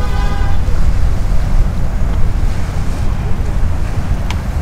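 Wind buffeting the microphone: a heavy, unsteady low rumble. A short pitched call sounds at the very start, and there is a single click near the end.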